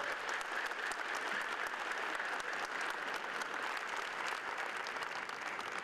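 Large audience applauding: dense, steady clapping.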